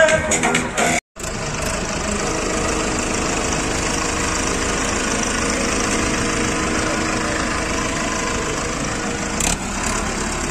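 Hindustan 60 tractor's diesel engine idling steadily, starting after a brief break about a second in.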